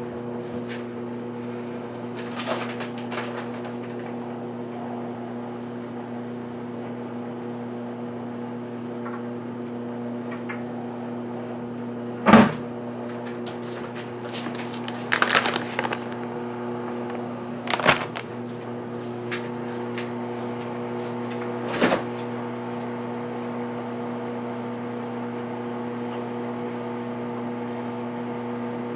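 A steady electrical hum from a running kitchen appliance, with a few knocks and clatters of things being handled in the kitchen, the loudest about twelve seconds in and a quick cluster a few seconds later.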